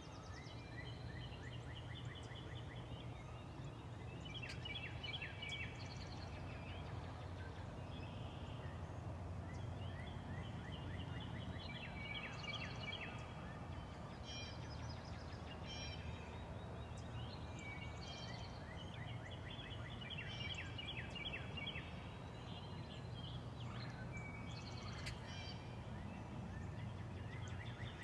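Wild turkey gobbling amid a chorus of songbirds, which sing repeated quick phrases throughout. There is a steady low background rumble.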